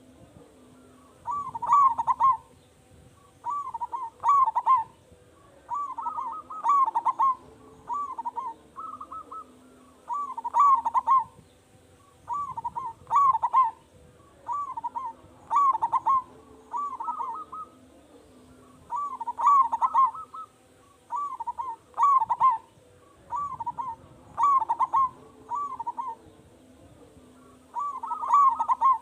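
Zebra dove (perkutut) cooing over and over: short phrases of several quick, rolling notes, repeated about every one to two seconds.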